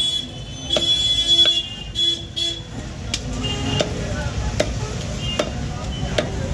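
Steel cleaver chopping goat meat and bone on a wooden log block, with sharp knocks about once a second through the second half. In the first couple of seconds a vehicle horn honks several times.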